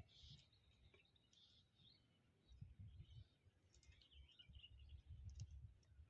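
Near silence outdoors: faint, scattered chirps of small birds in the background over a low rumbling noise, with a couple of soft clicks.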